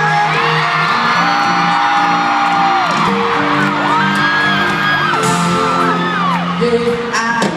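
Live pop band playing through an arena PA, recorded on a phone from the stands: a high voice sings long held and gliding notes over steady sustained chords.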